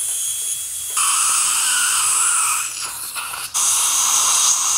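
High-speed dental drill running in a patient's mouth, grinding teeth, a steady high-pitched whine over hiss. It gets louder about a second in, dips briefly near three seconds, and gets louder again soon after.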